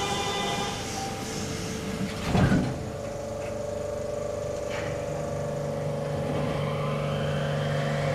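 Door chime of a 300-series Nippori-Toneri Liner rubber-tyred automated train dying away, then the sliding doors shutting with a thump about two and a half seconds in. A steady electric hum follows as the train starts, with a deeper hum joining about halfway through.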